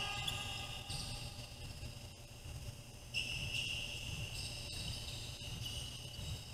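Basketball sneakers squeaking on a gym floor during play: several high squeals that come and go, one of them about a second long, over the low rumble of the gym.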